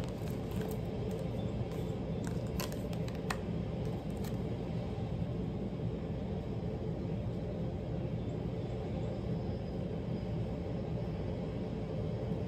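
Steady low rumble of background noise, with a few light clicks in the first four seconds.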